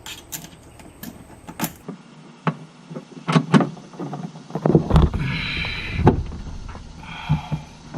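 Kayak gear-track bolts being tightened down: a run of sharp clicks and knocks of tools and hardware against the hull, with two short whirs of a small motor, the first about five seconds in and the second near the end.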